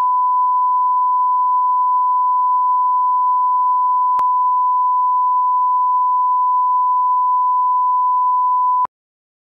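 Broadcast line-up test tone, the steady single-pitch reference tone that goes with colour bars, holding unbroken and then cutting off suddenly near the end.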